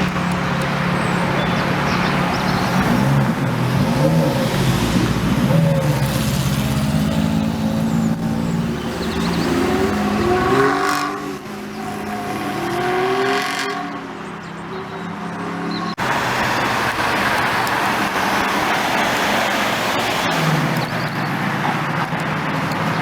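Modified car engines running. The note holds steady at first, then rises as the revs climb about ten seconds in, and a steady engine note follows after an abrupt change.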